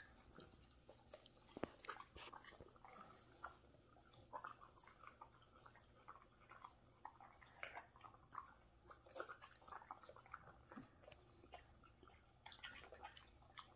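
An English Bulldog puppy and an American Bulldog chewing sprigs of leafy greens. The sound is faint and irregular: small crunches and wet mouth clicks.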